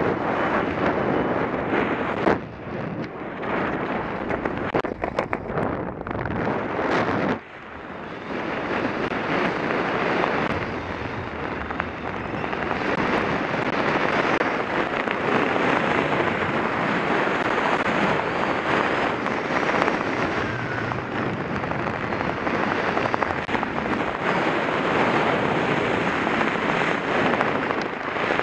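Freefall wind rushing over a body-mounted camera's microphone: a loud, dense roar that buffets unevenly for the first seven seconds, dips sharply for a moment, then settles into a steadier rush.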